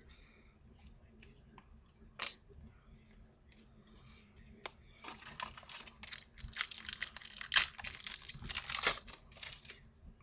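A few light clicks and taps, then a trading-card pack's wrapper being torn open and crinkled. The crinkling starts about five seconds in and lasts almost five seconds.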